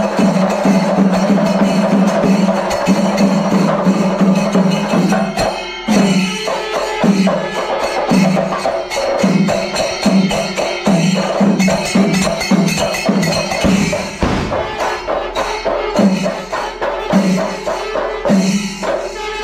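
Kerala temple-festival percussion ensemble: chenda drums beaten with sticks and cymbals clashing in fast, dense strokes. About six seconds in, a deep pulse of about two beats a second sets in.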